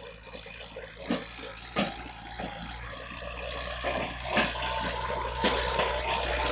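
Kubota farm tractor's diesel engine running steadily as it works the soil with a rear tilling implement, growing louder as it draws near, with scattered clicks and rattles over the engine hum.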